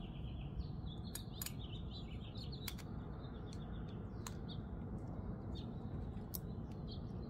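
Birds chirping repeatedly in the background, with several sharp, isolated clicks from a Kizer Kobold 2.0 liner-lock flipper knife being flipped open and closed.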